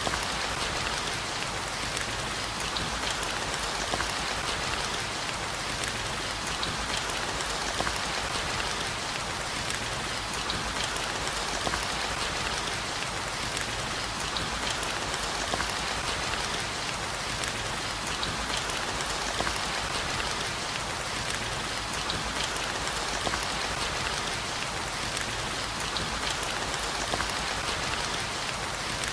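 Steady rain, an even hiss with many single drops ticking through it, holding the same level throughout with no thunder.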